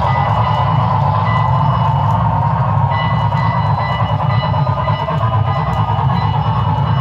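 HO scale model passenger cars rolling along the track close by: a steady rolling rumble, with a thin high whine over it that grows clearer about three seconds in.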